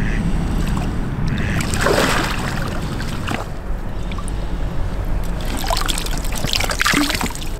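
Water splashing and sloshing as a mesh carp retainer sling is lifted out of the canal, water draining from it, in louder clusters about two seconds in and again near the end. A steady low rumble runs underneath.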